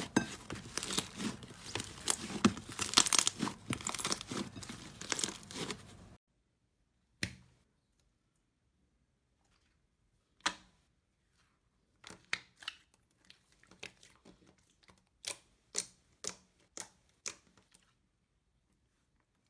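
Slime being squeezed and pulled, with dense crackling for about six seconds. The sound then cuts off abruptly, leaving scattered single sharp pops and clicks, more of them in a burst toward the end.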